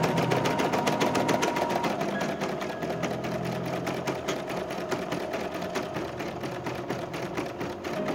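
CNY e960 portable computerised embroidery machine stitching a design into hooped fabric, its needle running in a fast, even rhythm of stitches.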